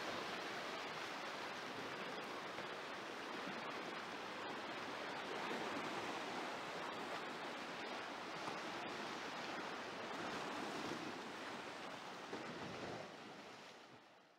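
Sea waves washing against a stone harbour wall and rocks, a steady rushing that fades out near the end.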